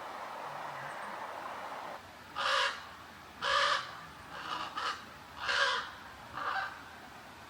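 Crows cawing: about six separate caws spread over some four seconds, a few louder than the others. They follow a steady rushing hiss that stops about two seconds in.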